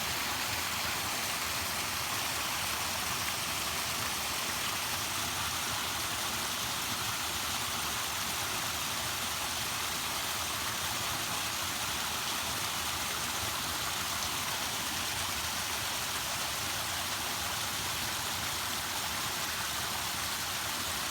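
Water falling in a waterfall: a steady, unbroken rush with a bright hiss.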